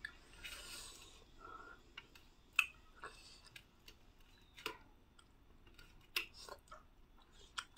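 Faint eating sounds close to the microphone: scattered soft clicks and smacks a second or two apart, with a short breathy hiss about half a second in.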